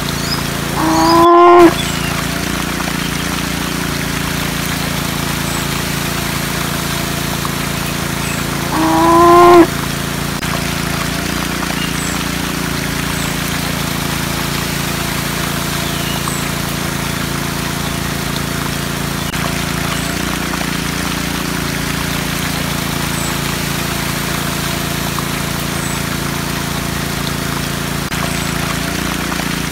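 Mini DC-motor water pump humming steadily as it runs. Two short cow moos, each rising in pitch, stand out about a second in and about nine seconds in.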